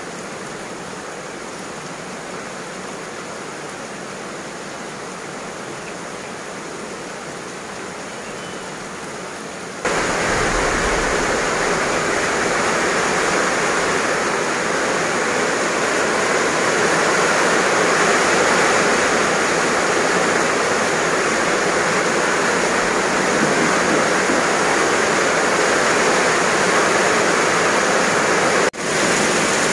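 Heavy rain falling steadily, a dense hiss; about ten seconds in it suddenly gets much louder, and it drops out for an instant near the end.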